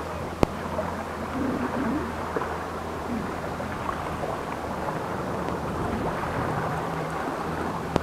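Steady rush of wind over the microphone and small sea waves washing against a rocky shore, with one sharp click about half a second in.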